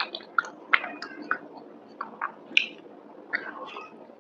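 Close-miked chewing of a mouthful of creamy pasta: irregular wet mouth smacks and clicks, several a second.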